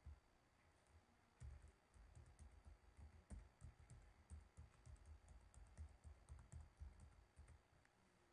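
Faint typing on a computer keyboard: a run of irregular keystrokes entering a username, starting about a second and a half in and stopping shortly before the end.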